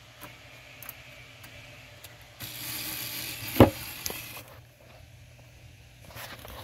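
Alligator clips being handled on N scale model track rails: a rustling metal scrape lasting about two seconds, with a sharp click in the middle and a smaller one just after, while the power connection to the track is being fixed.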